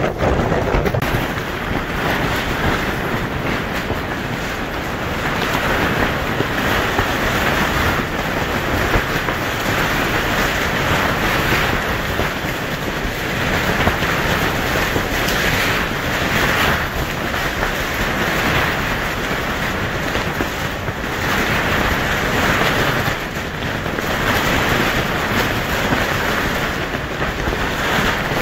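Windstorm gusts buffeting torn polyethylene greenhouse sheeting: a loud, continuous rushing and flapping that swells and eases with each gust, with heavy wind noise on the microphone.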